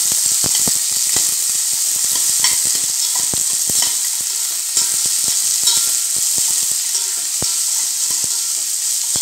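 Chopped onions sizzling in hot oil in a stainless steel pressure cooker while a spatula stirs them, scraping and clicking against the metal many times.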